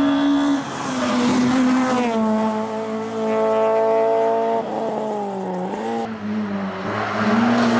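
Rally car engines at high revs through a tight bend. The engine note holds high with a few brief breaks, dips and wavers about five seconds in, then climbs again near the end as another car comes on.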